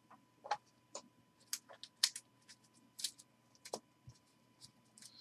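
Trading cards being handled on a table: a stack squared and tapped, giving about a dozen light, irregular clicks and taps.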